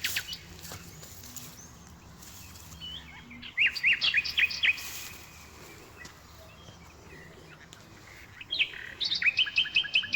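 A small songbird singing: a quick series of sharp repeated chirps about three and a half seconds in, then a longer, faster run of chirps near the end.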